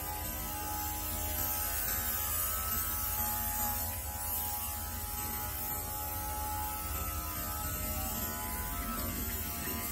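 Handheld wireless nano mist atomizer running, a steady electric hum as it sprays an alcohol mist.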